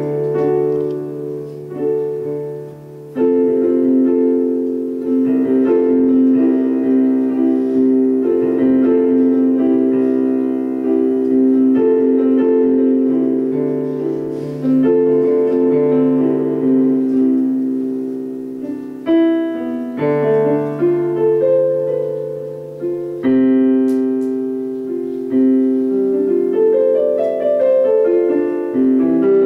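Solo digital piano playing slow, held chords that change every few seconds over a sustained low bass note.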